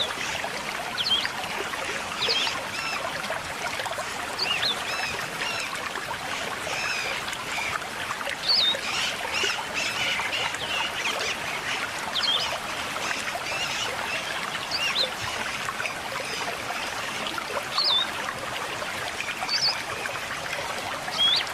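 River water flowing steadily with a trickling sound, and birds giving short, scattered chirps over it.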